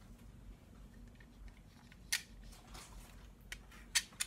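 A few sharp plastic clicks and taps from handling a Conair Curl Secret automatic hair curler, one about two seconds in and two close together near the end, over a faint steady low hum.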